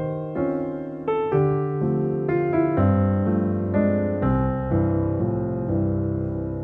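Background piano music: slow chords and melody notes, struck roughly once or twice a second and left to ring.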